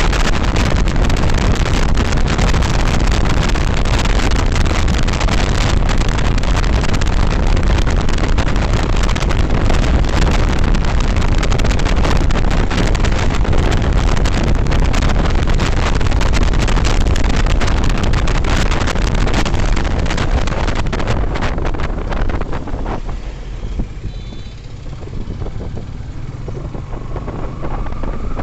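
Wind rushing over the microphone, with road and engine noise, from a Yamaha FZS V3 motorcycle riding at speed. It eases off about 23 seconds in as the bike slows.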